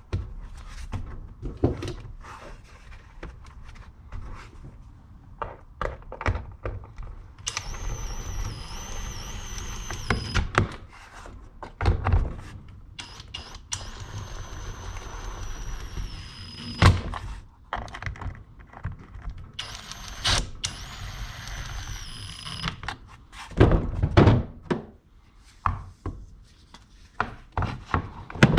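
Knocks and clicks of tools and chainsaw parts being handled on a workbench, with three spells of a high, steady whine lasting a few seconds each, like a small electric motor running.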